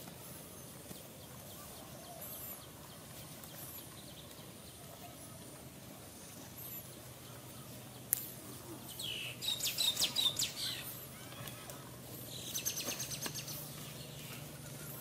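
Birds chirping, with a loud burst of rapid chirps about two-thirds of the way through and a shorter rapid series soon after.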